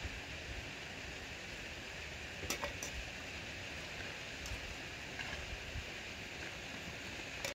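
Steady rush of flowing stream water, with a few faint clicks about two and a half and three seconds in.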